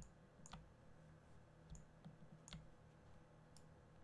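A few faint computer mouse clicks, about five spread unevenly, over a faint steady hum.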